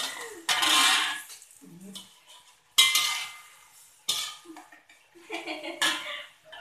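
Metal spatula scraping and clanking against an aluminium wok while stir-frying chunks of luffa, in about four separate ringing strokes.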